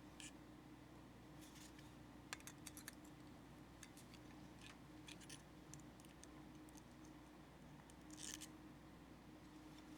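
Faint scattered clicks and short scrapes of small steel sockets and spring-steel clips being handled and pushed onto a 1/4-inch socket rail, over a low steady hum.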